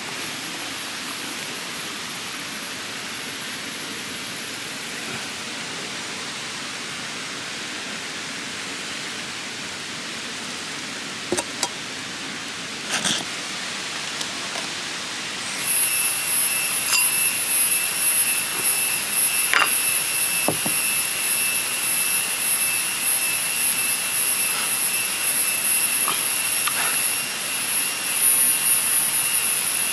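Steady drone of forest insects, a high, even whine on a few fixed pitches that gets much louder about halfway through. A few light clicks are scattered across it.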